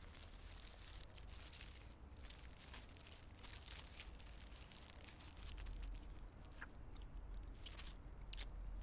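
Paper wrapper crinkling and tearing as food is unwrapped, in dense irregular crackles, giving way to fewer, sharper crunches of biting and chewing in the last few seconds, over a low steady hum.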